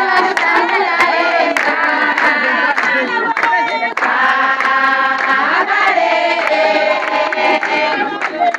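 A group of children singing together in chorus, with hand clapping.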